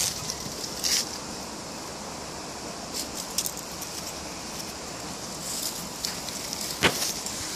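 Dry fallen leaves rustling and crackling on a wooden deck as a small dog steps and noses among them, in a few short bursts, with one sharp click just before the end.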